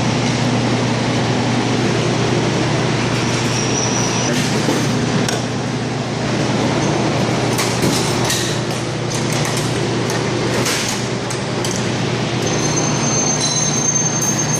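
Steady machine hum of a machine shop with metal tooling clinking and clicking, several sharp clicks in the middle, and a thin high whine near the end.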